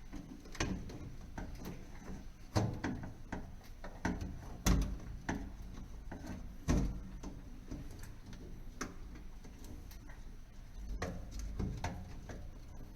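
Irregular clicks and knocks of hand work removing an old heat detector and its mounting base, with a few louder knocks about two and a half, four and a half and seven seconds in.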